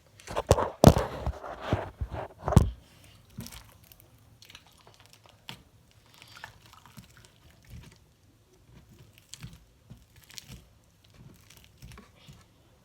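Loud knocks, bumps and rustling of the camera being handled and set back up, close on the microphone, in the first three seconds. After that, only faint scattered clicks and crackles.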